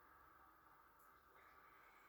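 Near silence: quiet room tone, with a faint click about a second in.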